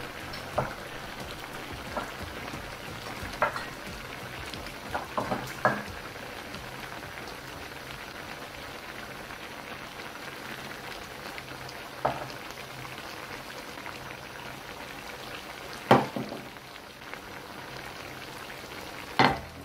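Thick fermented-fish mixture simmering in an aluminium wok with a steady bubbling hiss. A handful of sharp knocks and clinks sound as chopped vegetables are tipped in from a small bowl, the loudest near the end.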